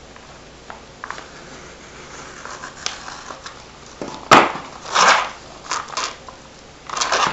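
Paper mailing envelope being pressed, crinkled and lifted, giving a few short rustles and crackles. The sharpest comes about four seconds in, and the rest follow over the last few seconds.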